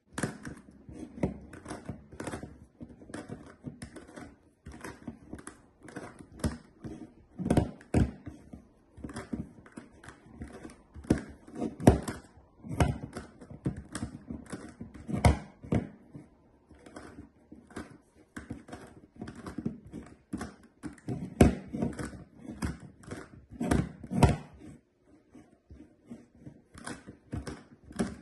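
GAN Megaminx's plastic pieces clicking and clacking as its faces are turned rapidly with one hand, in quick irregular runs of turns with a few sharper knocks.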